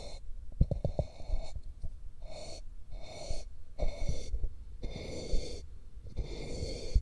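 Ear-cleaning ASMR: an ear pick is stroked and scraped inside the ear of a binaural microphone, giving a run of rasping swishes about once a second with short pauses between. There are a few soft clicks about a second in.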